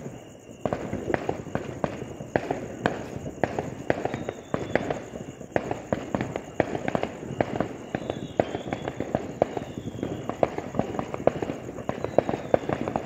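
Fireworks going off in a dense, irregular string of sharp bangs, several a second, after a brief lull at the very start.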